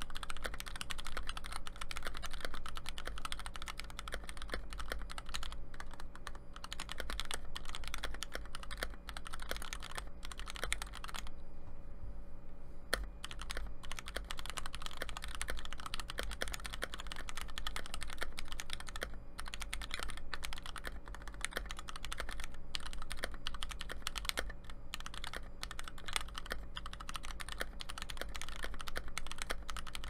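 Continuous typing on a Tofu 60 sixty-percent mechanical keyboard fitted with Tai-Hao keycaps: a fast, dense patter of keystroke clacks, with a brief pause about eleven seconds in.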